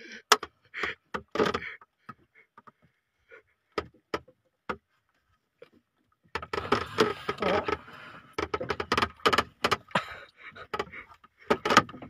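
Irregular knocks and clatter on a small fishing boat: a few scattered knocks early, then dense runs of clattering from about halfway in to near the end.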